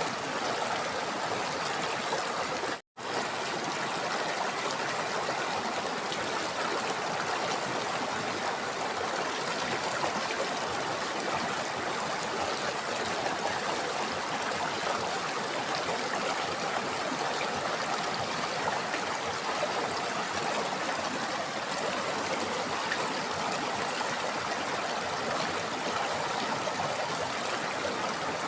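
River water flowing over rocks: a steady, even rushing and burbling. It cuts out completely for a split second about three seconds in.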